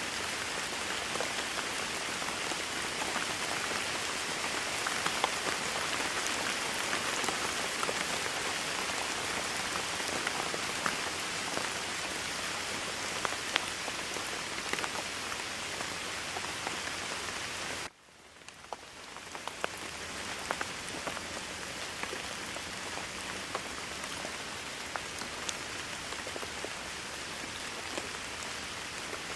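Steady rain falling on a hard surface, with individual drops ticking through the hiss. About two-thirds of the way in the sound cuts out abruptly, then fades back up to full rain over a couple of seconds.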